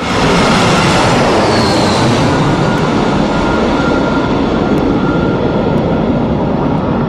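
Jet airliner engine noise, loud and steady, starting abruptly, with a brief falling high whine about one and a half seconds in.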